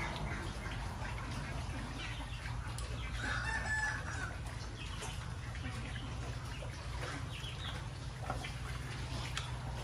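Pigs eating from a trough, with wet chewing and smacking clicks throughout over a steady low hum. A rooster crows once, about three seconds in.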